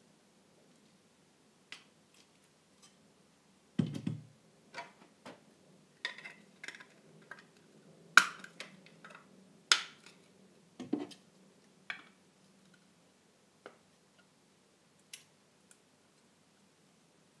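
Irregular small clicks and taps from handling a 1:200 scale model airliner and its packaging, with a dull thump about four seconds in and two sharp clicks near the middle.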